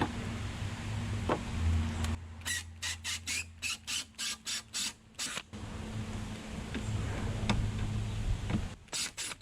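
Power drill running in reverse, backing out the tail-light housing screws, with a steady motor hum. In the middle and again near the end it gives a run of sharp squeaks or clicks, about four a second.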